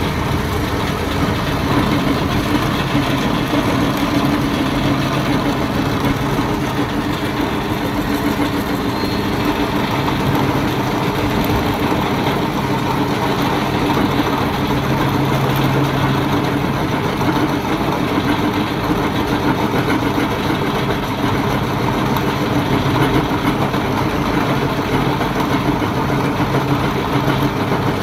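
Metal lathe running steadily, turning a tractor's clutch and brake pedal shaft that has been built up with weld, the cutting tool machining it back to size. A steady hum with dense cutting noise over it.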